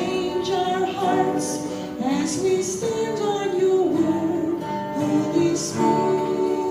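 A woman singing a slow worship song into a microphone, with guitar accompaniment; her voice holds long, sliding notes.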